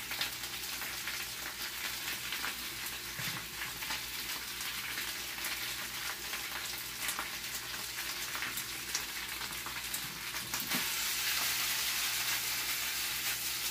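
Onions, peppers and greens sizzling in hot olive oil in a skillet: a steady crackling hiss that grows a little louder near the end.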